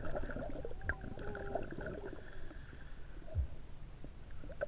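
Muffled underwater sound with the camera submerged: a scuba diver breathing through the regulator, exhaled bubbles gurgling, with scattered small clicks and a faint wavering hum about a second in.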